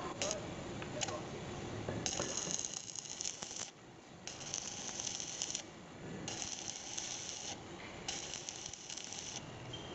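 Stick-welding arc crackling as a coated electrode lays weld inside the bearing bore of a truck wheel hub, building up the worn bearing seat so it can be turned again on the lathe. The crackle comes in four runs of a second or so each with brief breaks, after a couple of sharp clicks in the first second.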